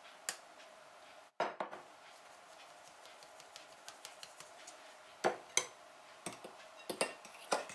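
Light tapping and clinking of a metal mesh sieve while flour is sifted into a glass bowl. In the second half, sharper clinks come as a spoon stirs the flour into the batter against the glass bowl.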